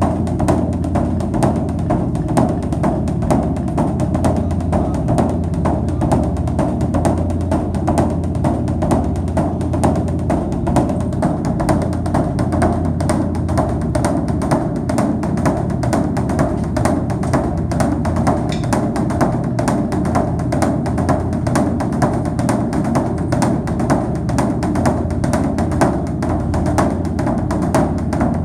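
Background music driven by fast, steady percussion: rapid drum and wood-block-like strikes over a sustained low bass.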